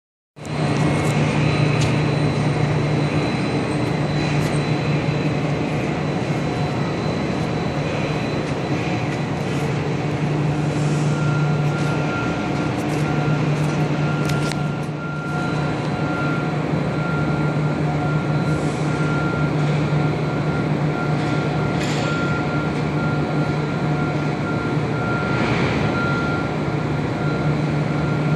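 Steady machinery drone inside a container ship's steel cargo hold: a constant low hum under even noise, with a thin steady whine that joins about a third of the way through.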